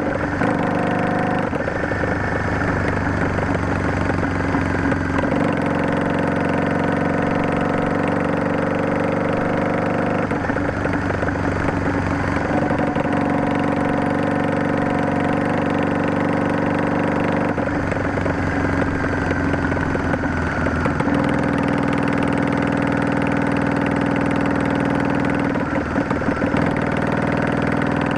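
Yamaha DragStar 400's V-twin engine running on the move, heard through a Garage T&F Vent Muffler Type2 with a luxury inner silencer. The exhaust note holds steady for several seconds at a time and changes pitch several times, with short rougher spells in between.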